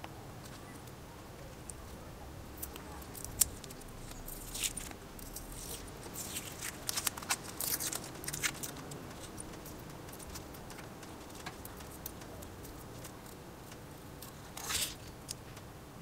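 Paper masking tape being peeled off a spark plug's ceramic insulator and crumpled in the fingers: soft crackles, tearing and small clicks, thickest in the first half, with one more short rustle near the end.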